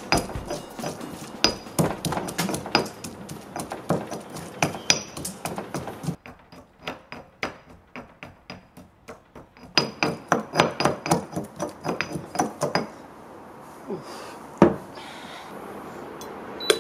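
Stone pestle pounding shallot, chilli, garlic and shrimp paste in a heavy stone mortar: a fast run of sharp knocks, a few seconds of softer pounding, then another fast run of loud knocks. After that it goes quieter, with one loud knock a little later.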